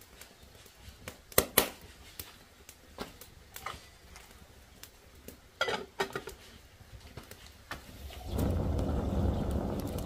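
A few sharp clicks and knocks, the loudest two close together about a second and a half in, then a steady low rumble that starts about eight seconds in.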